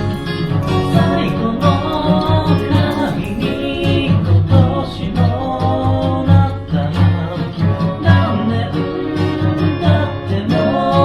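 Background music: an upbeat song with guitar, a steady beat and a singing voice.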